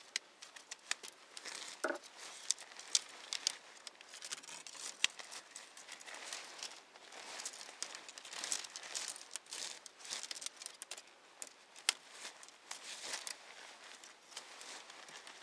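Nylon tent fabric rustling and crinkling as an aluminium tent pole is pushed through its fabric sleeve, with many scattered light clicks.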